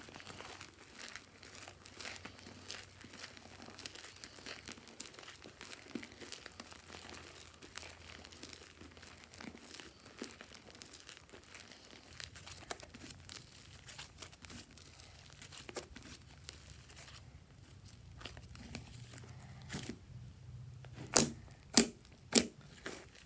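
Slime being squished and handled, giving a dense run of small crackling and popping sounds, then three loud sharp snaps close together near the end.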